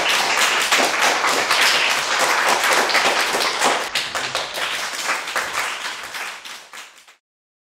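Hand clapping applause that fades out and stops about seven seconds in, leaving silence.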